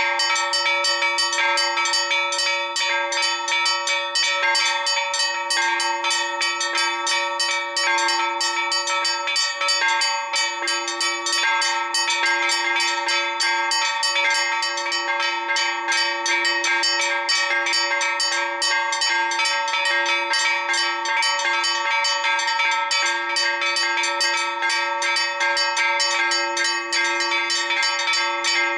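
Four church bells ringing together in a fast, continuous peal. Many strikes a second overlap over the bells' steady ringing tones. It is the festive peal rung before High Mass on a feast day.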